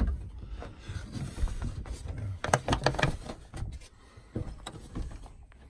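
A wooden door shutter and its metal latch being fitted over a door: a few sharp knocks and clicks about two and a half to three seconds in, with scraping and low handling rumble around them.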